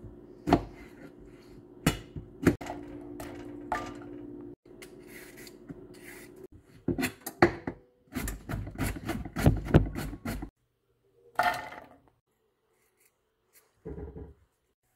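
Chef's knife chopping vegetables on a plastic cutting board. A few separate knocks of the blade hitting the board come first, then a fast run of chops through carrots, and two short clatters near the end.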